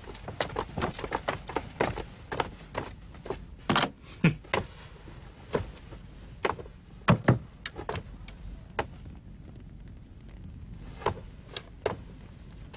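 Quick footsteps of several people hurrying out, with a few heavy wooden thuds about 4 and 7 seconds in. After that come a single person's slower, spaced footsteps.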